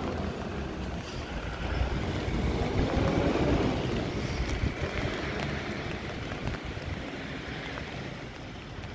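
Wind buffeting the microphone outdoors: a steady rumbling hiss that swells for a couple of seconds around the middle, then eases.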